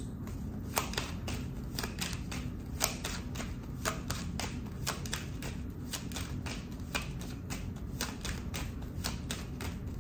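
A deck of playing-size cards shuffled by hand, giving a quick, irregular run of small clicks as the cards are flicked and slid from hand to hand, several a second.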